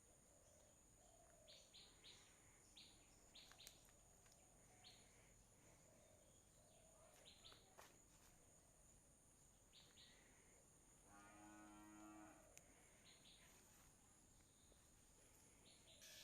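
Faint outdoor ambience with short, high bird chirps scattered throughout, and one drawn-out animal call lasting about a second and a half, about eleven seconds in.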